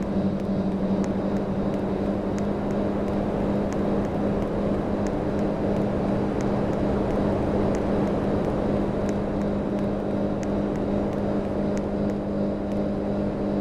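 Panasonic air conditioner running steadily with a strong low hum over even fan noise and a faint tick repeating about every two-thirds of a second.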